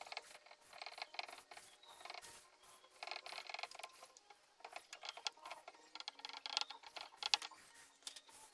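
Rapid, irregular clicking, ratcheting and creaking as clamps and boards are worked during a glue-up. The sound comes in clusters, with busier stretches about a second in, around three seconds in, and between six and seven and a half seconds in.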